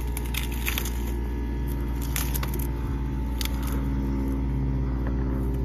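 Dry pampas grass stalks rustling and crackling in bunches of sharp clicks as they are pushed into a plastic wheeled yard-waste cart, over a steady low engine-like hum.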